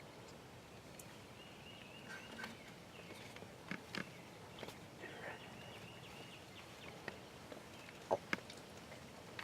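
Quiet outdoor background with a small bird singing in short runs of repeated high chirps, and a few sharp clicks or snaps, the loudest a pair near the end.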